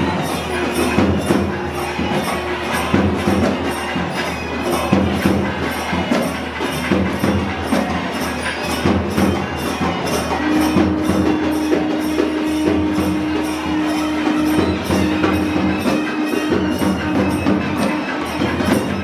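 Temple procession music: dense rhythmic percussion with steady jingling metal strokes, and a long held note from about halfway through.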